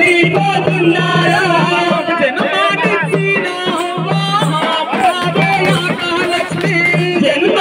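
Funeral lament sung with instrumental accompaniment: a wavering singing voice over a low held note that sounds in stretches of about a second at a time.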